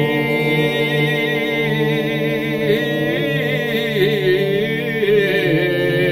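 A group of men singing a Georgian folk song in parts, unaccompanied: a held low drone under wavering, ornamented upper voices.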